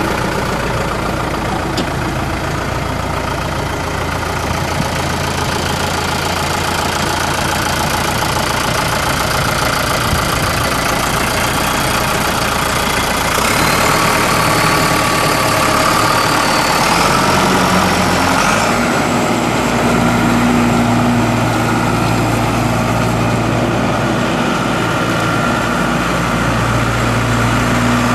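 John Deere 5425 tractor's 4.5-litre four-cylinder turbo diesel running steadily at idle, then a little louder with a faint rising whine about halfway through as the tractor drives off. The engine note shifts again a few seconds later.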